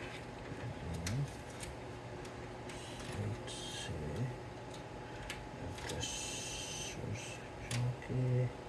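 Handling of PC case parts and cables: scattered light clicks and taps, two short bursts of rustling or scraping, and a few dull bumps, over a faint steady hum.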